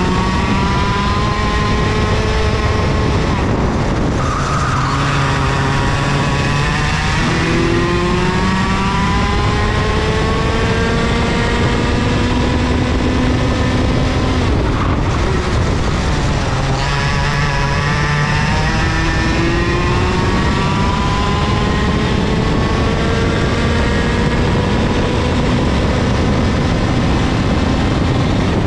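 IAME KA100 100cc single-cylinder two-stroke kart engine running under load, its pitch climbing slowly down the straights and dropping sharply twice, about four seconds in and again about halfway through.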